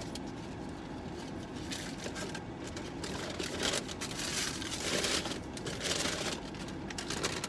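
Paper food packaging rustling and crinkling as it is handled, in irregular bursts.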